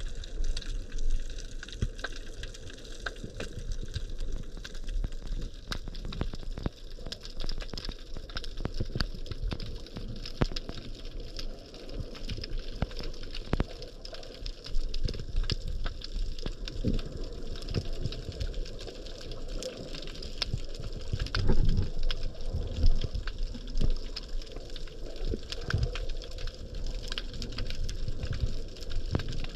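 Underwater ambience heard through a camera housing: a steady rush of moving water with a constant crackle of sharp clicks and irregular low thumps from the swimmer's movement.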